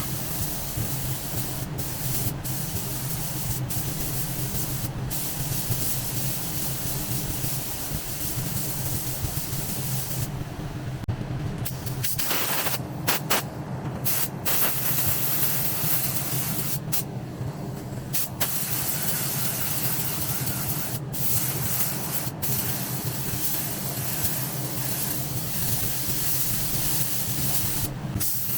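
Compressed-air paint spray gun hissing steadily as it sprays automotive paint onto a car body, the hiss cutting out briefly several times between passes, over a steady low hum.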